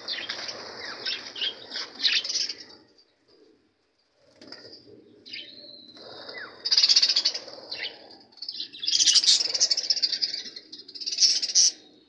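A flock of budgerigars chattering and chirping in busy bursts, with a near-silent break of about a second roughly a third of the way through.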